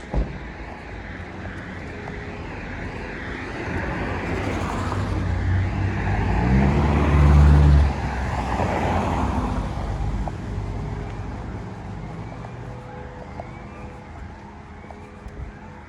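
A motor vehicle passing on a wet street: tyre hiss swells to a peak about halfway through, then fades away. A deep engine hum grows loud at the peak and cuts off suddenly.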